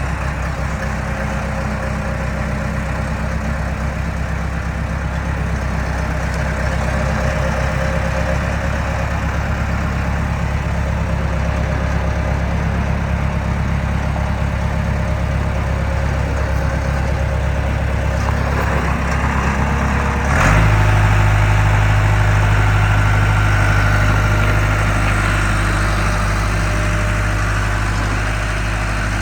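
Case 1845C skid steer's four-cylinder diesel idling steadily. About two-thirds of the way through it steps up suddenly to a faster, slightly louder speed and holds there.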